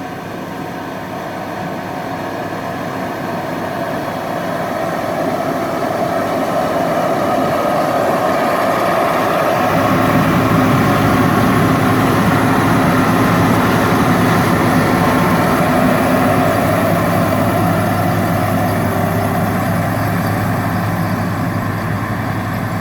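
Heavy farm machinery's diesel engine running steadily, growing louder over the first ten seconds as its low hum comes up, then holding steady.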